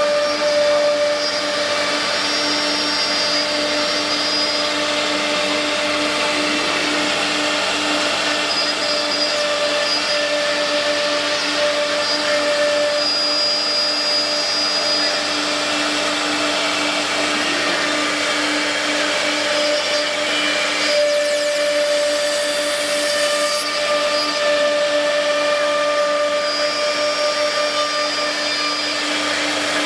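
Automatic panel-feeding CNC machining centre running: a steady mechanical hum and whine with a few held tones, over a constant rush of noise. About two-thirds of the way through comes a brief, high hiss lasting a couple of seconds.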